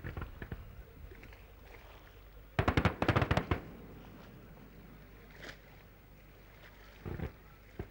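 Fireworks going off: a bang at the start, then a rapid string of sharp cracks lasting about a second, the loudest part, about three seconds in, and two single bangs near the end.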